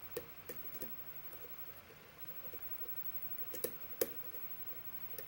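A lock pick working the pins of a five-pin challenge lock during single-pin picking: scattered small sharp metallic clicks, a few in the first second and a cluster of louder ones about three and a half to four seconds in. The clicks are the feedback of pins being lifted and setting.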